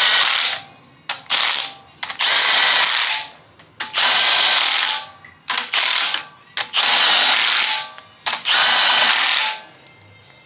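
A handheld power tool spinning head bolts down through a socket and extension in repeated bursts of about a second, stopping and starting between bolts, then falling quiet near the end.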